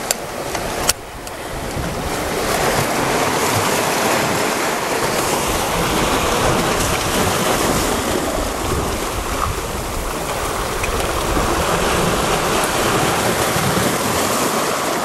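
Sea surf washing over shoreline rocks, a steady rush of waves. Two sharp clicks in the first second.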